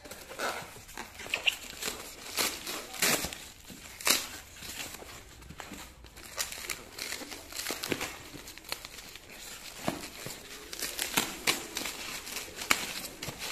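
Plastic wrapping and bubble wrap crinkling and rustling in irregular crackles as hands unpack items from a cardboard box.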